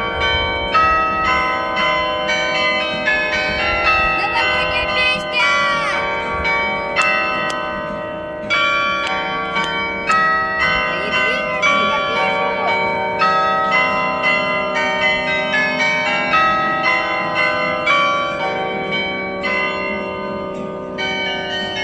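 Carillon of tuned bells hung in a building's facade loggia playing a slow melody, a new bell note struck about twice a second over the ring of the others, with a short break about eight seconds in.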